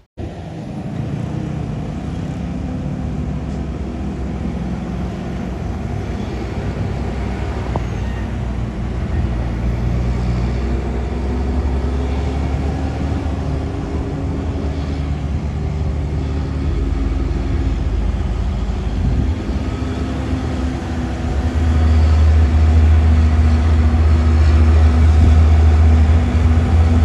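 Heavy truck's diesel engine running steadily, with a deep low rumble that grows louder about 21 seconds in.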